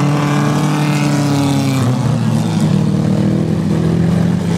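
Race car engines running hard as several cars slide through a turn on a snow track. The engine note swells and then drops within the first two seconds, and a steadier engine note carries on after.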